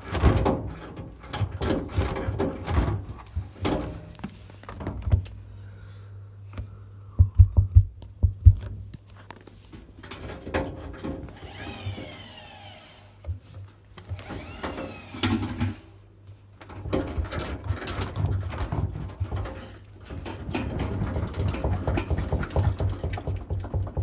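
Arçelik 4120 S washing machine running with a steady low hum and irregular knocking and clattering, with a few short squeaks about halfway through and a busier, denser rattle in the last third. The machine is described as broken.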